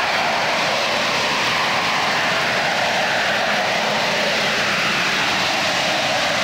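AV-8B Harrier's Pegasus turbofan running at hover thrust: a steady, loud jet noise with a faint whine that drifts slowly in pitch.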